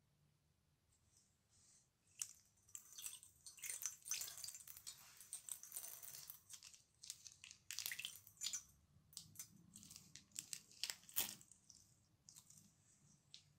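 Liquid slime squeezed out of a piping bag: quiet wet squelching and crackling in irregular spurts as the slime and trapped air are pushed out. It starts about two seconds in, with a few sharper pops and clicks.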